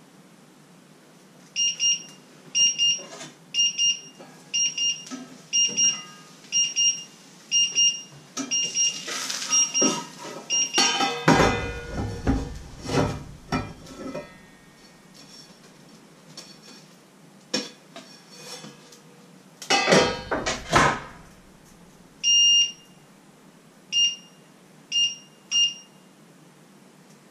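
Short, high electronic beeps from a kitchen appliance's beeper, about one every 0.7 s for the first ten seconds, then a few scattered beeps near the end, one of them longer. Twice, about eleven and twenty seconds in, louder scraping and clattering noise breaks in.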